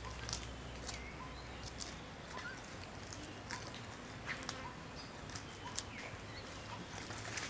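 Outdoor ambience with scattered sharp clicks and faint, short animal chirps. A low hum is present for the first couple of seconds.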